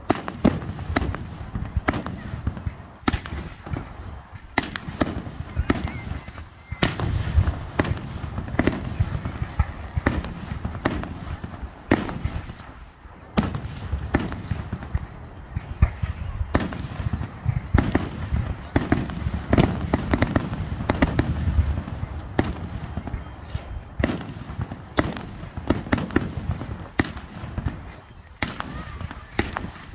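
Aerial fireworks display: shells bursting one after another, sharp bangs about one to two a second over a continuous low rumble from overlapping reports.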